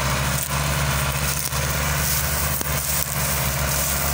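Diesel engines of two Al-Ghazi (Fiat) tractors running steadily under heavy load, a low, even throbbing drone, as they haul a fully loaded sugarcane trolley in tandem and the lead tractor belches black smoke.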